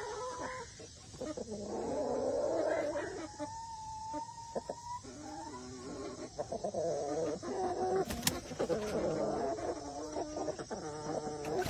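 Chickens clucking and calling, with one longer held call about three seconds in.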